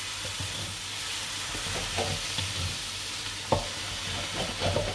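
Rice vermicelli and mustard greens sizzling in a hot wok as they are stir-fried with a wooden spatula, steady sizzling with a few knocks of the spatula against the wok, the sharpest about three and a half seconds in.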